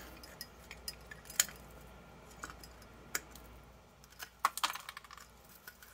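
Tongue-and-groove pliers crunching ceramic cement off the glass post of a projector lamp: scattered sharp clicks and cracks as bits break away, with a quicker run of them about four seconds in.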